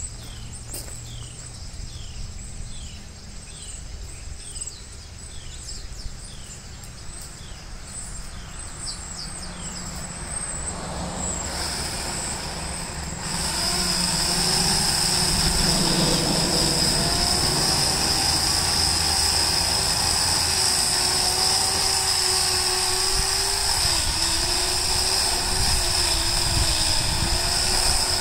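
Remington electric chainsaw with a newly fitted chain starting up about halfway through and running with a steady high whine, its pitch sagging and wavering as it cuts into a small tree trunk. Before it starts, a short chirp repeats about twice a second.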